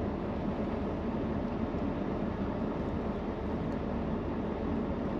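Pickup truck engine running, heard from inside the cab as a steady low rumble.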